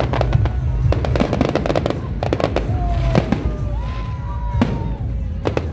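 Fireworks display: aerial shells bursting in a rapid series of bangs and crackles over a continuous low rumble, with a few wavering whistling tones about three to four seconds in.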